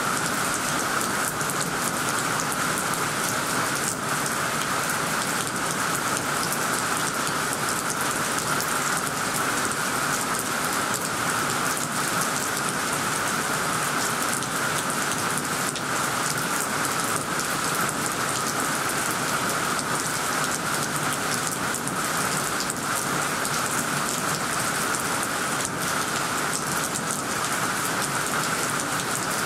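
Heavy downpour falling on dense tree foliage: a steady, even rush of rain that holds unchanged throughout.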